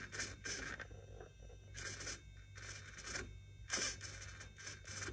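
Steering of an HG P602 RC truck being worked back and forth by its servo in several short bursts, the steering link scraping where it catches: a steering fault that makes the link rub on each turn.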